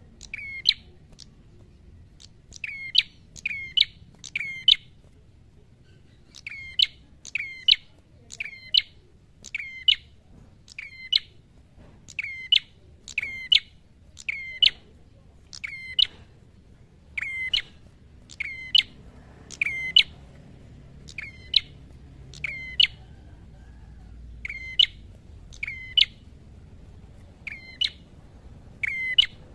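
Caged rufous-headed tailorbird calling loudly and repeatedly: short sharp chirps about one a second, often in quick pairs or threes, with brief pauses between runs. This is the vigorous, fired-up 'fighting' calling that bird keepers train their birds with.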